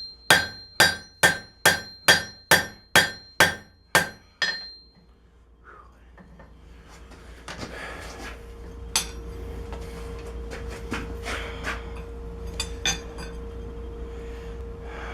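Hammer striking hot steel on an anvil, about ten ringing blows at roughly two a second while drawing out a knife blade forged from a wrench, stopping after about four and a half seconds. After a short pause, a steady rushing hum with a few light metal clinks.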